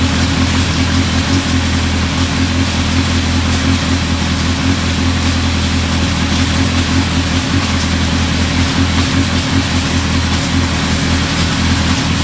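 2005 Honda CBR1000RR Fireblade's inline four-cylinder engine idling steadily.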